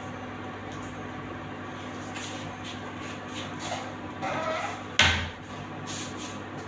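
Steady hum of an induction cooktop heating a steel saucepan of water, with a single sharp knock about five seconds in.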